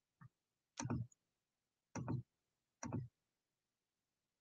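A few short clicks or taps, roughly one a second, on an otherwise silent line.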